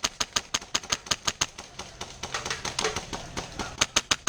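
Airsoft guns firing: a fast run of sharp snapping shots, about six a second, that thins out about halfway and picks up again near the end.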